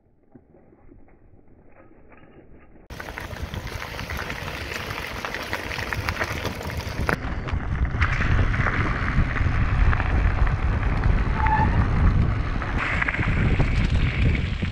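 Bicycle riding over a gravel and dirt track: tyre crunch and rumble with wind on the bike-mounted camera. It is faint at first and turns loud and steady about three seconds in.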